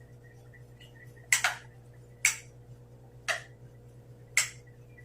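Four sharp clicks about a second apart, each with a short ring, over a faint steady hum.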